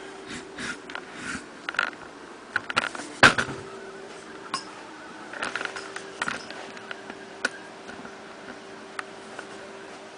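Kydex sheath and its belt clip being handled and fitted onto a belt: clothing rustles and scattered plastic clicks, with one sharp snap about three seconds in. A steady low hum runs underneath.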